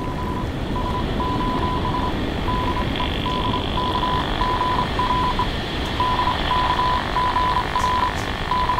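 Radio transmitter sending an SOS distress signal in Morse code: a single high beep keyed on and off in short and long pulses, over a steady rushing noise.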